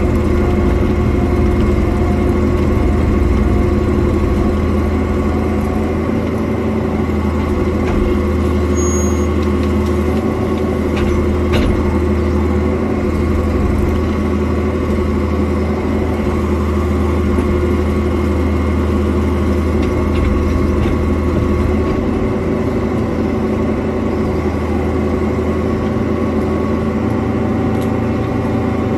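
Cat 305.5 mini excavator's diesel engine running steadily while the arm and bucket work through brush.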